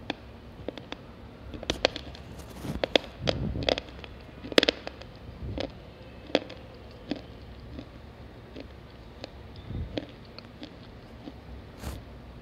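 Slate pencil being bitten and chewed close to the microphone: a run of sharp, crisp crunching cracks, thickest in the first half and thinning out toward the end.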